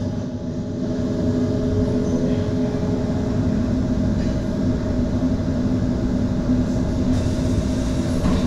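HTM GTL8 electric articulated tram running along its track: a steady rumble of wheels on rail with an even electric hum over it, growing slightly louder.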